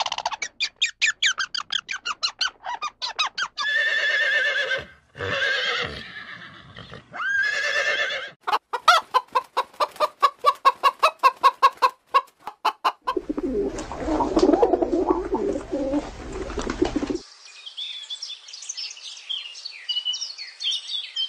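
Hen cackling: fast runs of clucks, about six a second, broken by longer drawn-out squawks. After that comes a low rough noisy sound lasting a few seconds, then faint high chirping.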